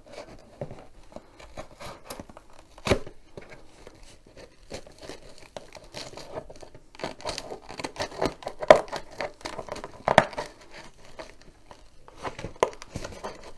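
Reinforced packing tape on a cardboard shipping box being cut and torn open along its seal: irregular scraping and crackling, with sharper snaps about three seconds in and again around nine and ten seconds.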